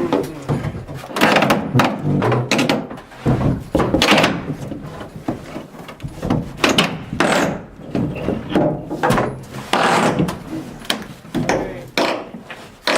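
Wood knocking and clunking at irregular intervals, a dozen or more sharp impacts, as pieces of a house's timber structure are handled and worked loose during hand dismantling.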